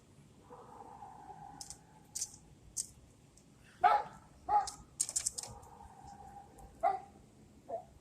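An animal gives several short, sharp barks, about four, with bursts of quick high clicks and a couple of held mid-pitched tones between them.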